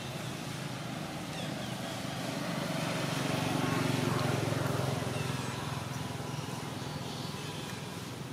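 A motor vehicle passing: a low rumble that grows louder about three seconds in and fades again after about five seconds, over steady outdoor background noise.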